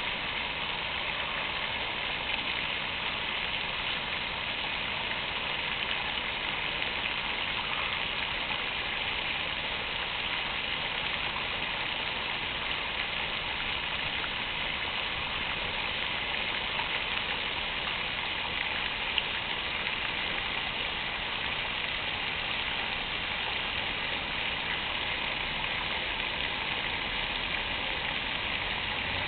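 Fountain water splashing and falling steadily, an even rushing spray with one brief click about two-thirds of the way through.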